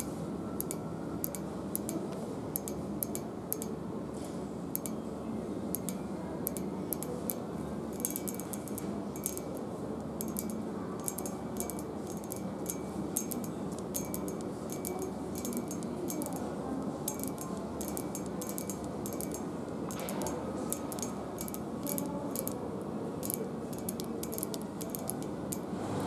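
Long acrylic fingernails tapping on a textured painted metal handrail: quick, irregular sharp clicks, several a second, over a steady background hum.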